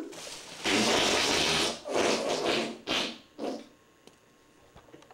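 A few bursts of rustling, hissing noise: the first and loudest lasts about a second, then shorter ones follow and die away after about three and a half seconds.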